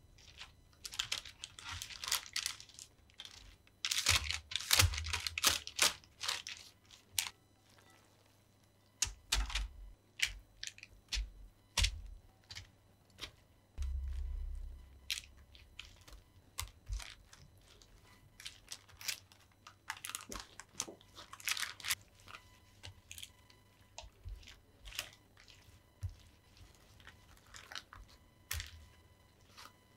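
Baking parchment crinkling and rustling under a silicone brush spreading olive oil in a baking tray, then a silicone spatula scraping and spreading a wet chopped-herb kuku mixture over the parchment, in irregular strokes with small clicks.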